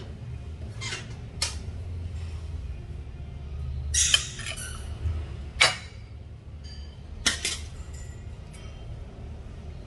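Spatula clinking and scraping against a porcelain plate as stir-fried pork and ginger is served onto it: a handful of sharp clinks, the loudest about four seconds in, over a low steady hum.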